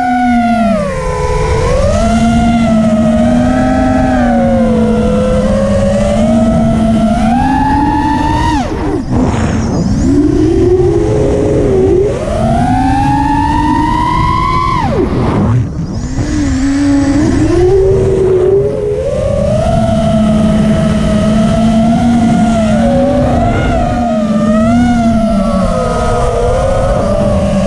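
Racing quadcopter's motors and propellers whining, pitch rising and falling constantly with the throttle, with low wind rumble on the onboard camera's microphone. The pitch drops sharply about 9 and 15 seconds in, and between those a long rising whine climbs.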